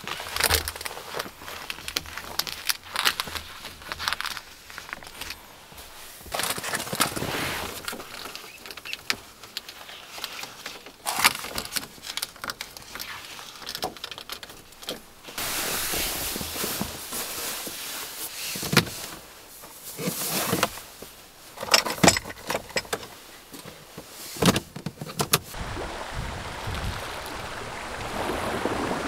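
Someone handling things inside a small van: scattered clicks, knocks and rustling, some sharp. Near the end a steady hiss takes over.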